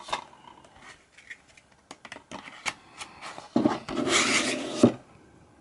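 A plastic DVD case rubbing and sliding into its cardboard slipcover for about a second, ending in a sharp knock, with light plastic clicks of handling before it.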